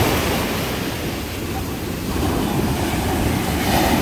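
Heavy sea surf: big waves breaking and washing up the beach, with wind buffeting the microphone. The surf swells up again about two seconds in.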